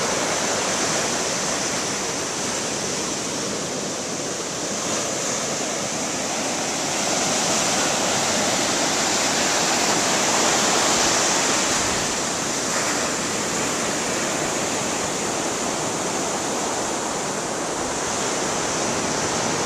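Ocean surf breaking and washing up a sandy beach: a steady rushing wash that swells a little around the middle.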